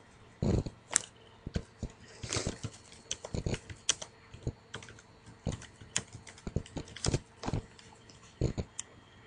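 Typing on a computer keyboard: irregular, quick key clicks.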